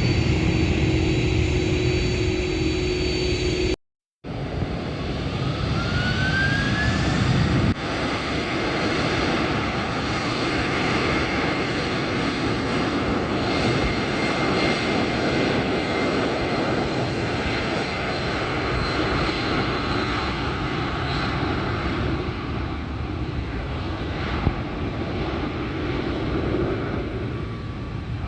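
Airliner engines at an airport. A short cut about four seconds in, then an engine whine rising in pitch for a few seconds and a steady loud engine noise.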